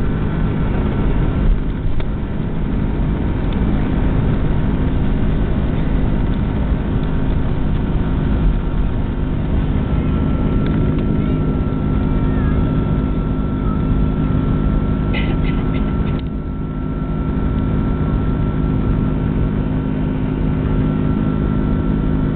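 Airliner's under-wing jet engines at takeoff power, heard from inside the cabin: a loud, steady roar with a droning hum, and a thin high whine that comes in about ten seconds in. A few clicks and a brief dip in the noise come about fifteen to sixteen seconds in.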